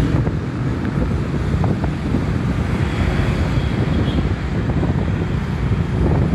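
Steady wind buffeting the microphone over the engine and road noise of a vehicle moving along a road.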